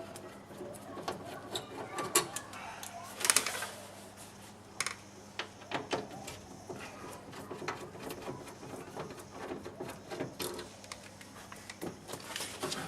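Scattered clicks, taps and small rattles of hand tools working on a car's rear door handle and latch linkages, with the sharpest clatter about three seconds in.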